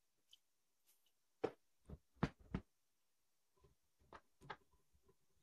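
Faint, sharp clicks and knocks, about eight in small groups, from a screwdriver with a T-bar handle being turned to cut a thread with a tap in an aluminium part.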